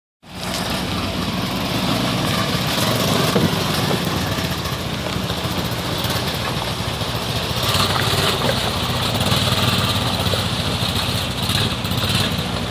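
Small ATV (four-wheeler) engine running at low speed as the quad crawls down a gravel bank into a shallow river, over the steady rush of the stream's water.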